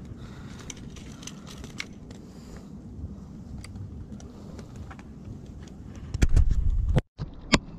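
Wind and handling noise on a body-worn camera's microphone: a low rumble with scattered light clicks and ticks. Near the end it swells into a much louder rumble for under a second, cuts out briefly, then two sharp clicks.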